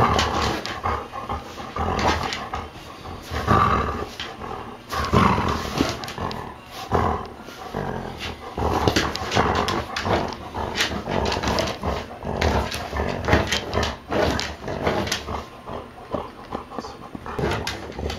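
Black Labrador retriever growling in play while tugging on a rubber toy, in uneven bursts that rise and fall.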